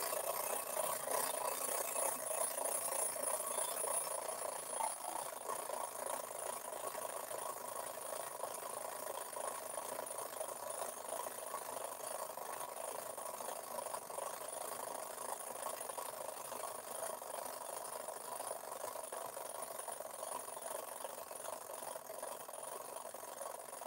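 Tin toy airplane circling a toy globe on its arm, its small motor running steadily and slowly getting quieter.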